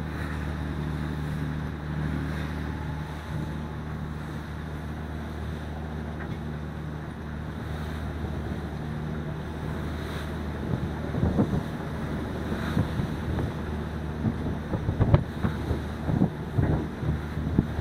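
Sailboat under way in strong wind and whitecapped waves: wind and water rush over a steady low drone. From about eleven seconds in, gusts buffet the microphone in irregular thumps.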